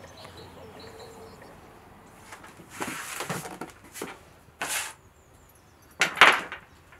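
Three short scraping, knocking handling noises, as a cup and a leather strap are handled at a wooden table, the loudest near the end. Faint bird chirps at first.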